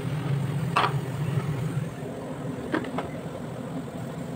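Wheat flour tipped from a bowl into an empty kadhai over a steady low kitchen hum that fades about halfway through. There is a short knock about a second in and two light taps near three seconds.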